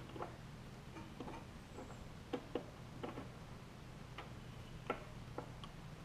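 Faint, irregular clicks and taps as a small engine fuel pump and its fittings are handled and pushed into place against the engine, about ten in all, over a low steady hum.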